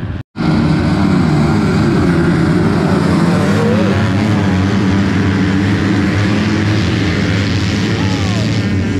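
A pack of motocross motorcycles revving and pulling away from the start line, many engines running together, with pitch rising as they accelerate. The sound drops out for a split second just after the start.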